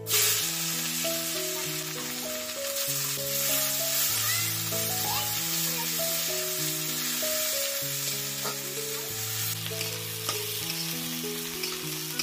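Sliced onions sizzling as they drop into hot oil in an iron kadai, the hiss starting suddenly and going on as they are stirred with a spatula. Background music plays underneath.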